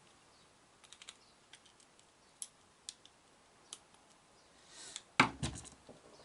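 Scattered light clicks and taps of small hard objects being handled on a work surface, with a louder knock and a brief clatter about five seconds in.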